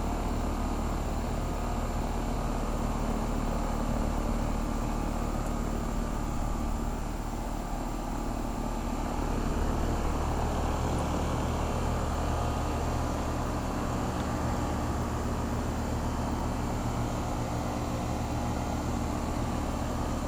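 2007 Carrier central air-conditioner condensing units running steadily under a high heat load: a low compressor hum under the even rush of the condenser fans.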